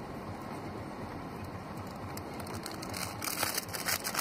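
Plastic wrapper of a squishy toy crinkling and crackling as it is torn open by hand, the crackles coming thick from about halfway in. Underneath is a steady low car-cabin rumble.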